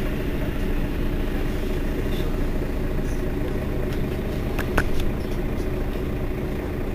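Mercedes-Benz Citaro facelift city bus idling at a standstill, a steady engine hum. A short sharp click comes about two-thirds of the way in.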